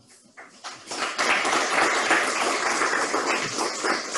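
Audience applauding: a few claps at first, building to full applause about a second in.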